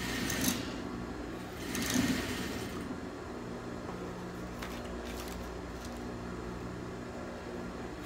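Industrial sewing machine stitching fabric in two short runs, about half a second in and around two seconds in, over a steady low hum.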